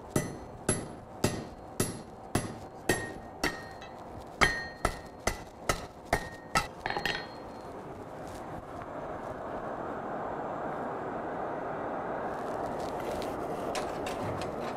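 Hand hammer striking hot half-inch steel stock on an anvil about twice a second, each blow ringing, while the blacksmith draws out a fish tail at the end of a leaf hook. The blows stop about seven seconds in, and a steady rushing noise from the coal forge builds after that.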